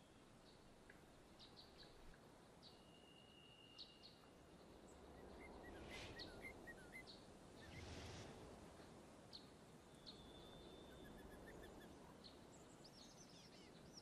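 Faint forest ambience: scattered short bird chirps and two brief held whistles over a low hiss, with two soft swells of rushing noise in the middle and a quicker run of chirping near the end.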